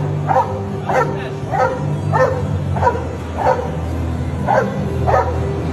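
A dog barking repeatedly, about eight short barks at a steady pace of roughly one every 0.6 seconds, with a brief pause past the middle.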